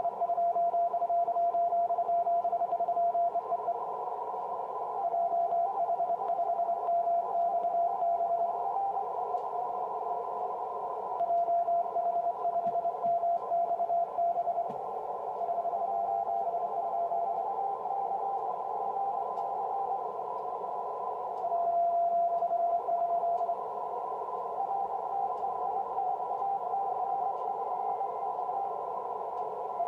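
Morse code (CW) signal from the station 3B9FR heard through the speaker of a Yaesu FT-736 transceiver on the 6 m band: a keyed tone of one steady pitch over narrow-filtered receiver hiss. The signal swells and fades in strength several times.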